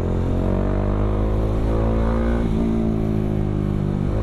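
Bajaj Dominar 400's single-cylinder engine, breathing through an Akrapovic M1 slip-on exhaust, accelerating under way: the revs climb gradually, drop at a gear change about two and a half seconds in, then climb again.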